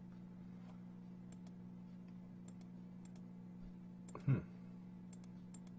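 Faint, scattered computer clicks over a steady low hum, with one short louder sound about four seconds in.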